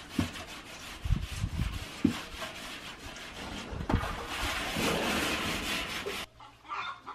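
Coarse salt being scrubbed by hand around the inside of a copper cazo with lemon: a gritty rubbing and scraping against the copper, with a few dull knocks of the pot. This is how the copper is scoured clean and bright before cooking. The scrubbing cuts off abruptly near the end.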